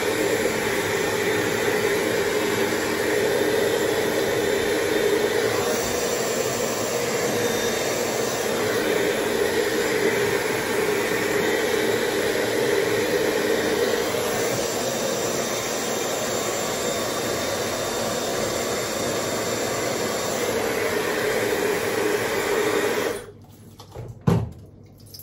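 Hair dryer blowing steadily, switched off near the end, followed by a single short knock.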